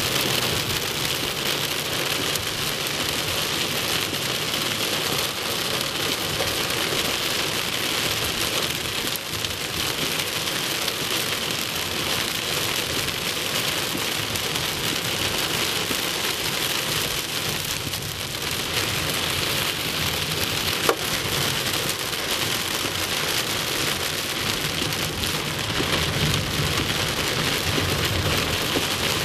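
Heavy rain drumming steadily on a car's roof and windshield, heard from inside the moving car, with one sharp knock about two-thirds of the way through.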